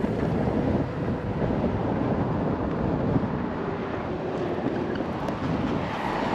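Wind noise on the microphone while riding a Begode Master V4 electric unicycle, with the steady rumble of its tyre and motor on the road beneath.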